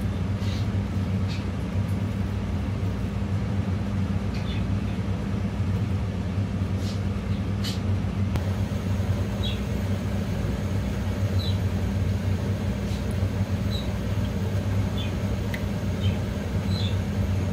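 A steady low hum runs throughout. Over it come a few short, wet squelches from a hand mixing cabbage pakora batter in a glass bowl, and later only faint scattered small clicks.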